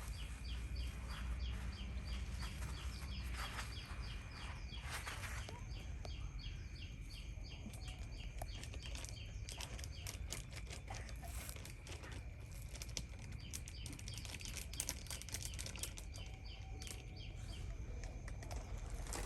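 A small bird chirps in a rapid run of short high calls, about four or five a second, which then come on and off. Under it are a steady high whine and scattered clicks and rustling.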